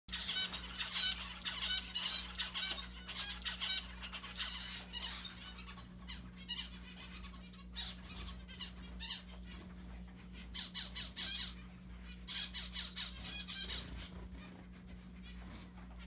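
Zebra finches calling: rapid strings of short, high calls in several bouts with brief pauses between them.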